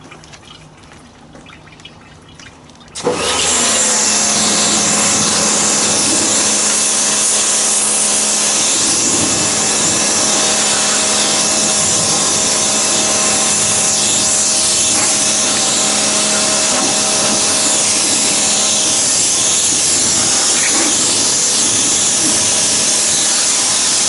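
Pressure washer starting up about three seconds in and running steadily, its motor-driven pump humming under the hiss of the water jet from a lance sprayed up under the car's wheel arch.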